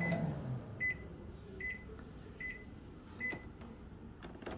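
Panasonic microwave oven finishing its cycle: the running hum winds down at the start, then four short high beeps about 0.8 s apart signal the end of cooking.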